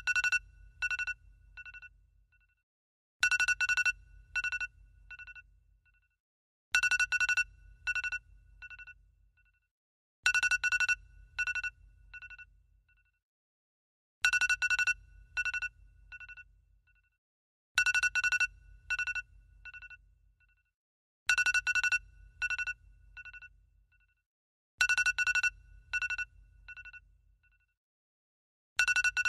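iPhone alarm tone ringing in a loop of high, chiming beeps. Each bright burst is followed by three or four fading repeats like an echo, and the pattern comes round about every three and a half seconds, with a low hum under each burst.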